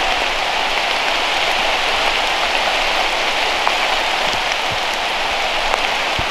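A steady, even hiss like falling rain, with faint scattered ticks.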